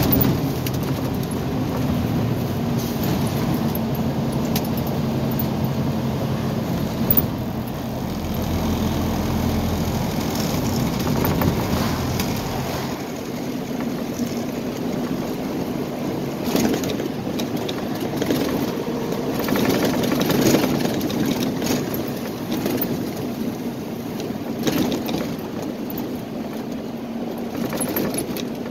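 Heavy truck's engine and road noise heard from inside the cab while driving, a steady hum with a deep rumble that drops away about halfway through. A few brief rattles and knocks from the cab come through.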